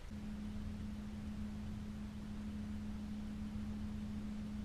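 Steady electric hum of a bass boat's trolling motor at one even pitch, over a low rumble.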